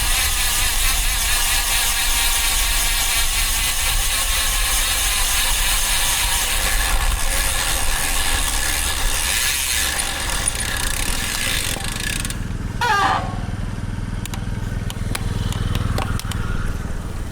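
Road bike riding in traffic: steady wind and road noise on the bike-mounted microphone. About 12 seconds in the noise falls away, a brief squeal rises and falls, and then a low vehicle engine hum and a few ticks of the DT Swiss rear hub's freewheel are heard as the bike coasts.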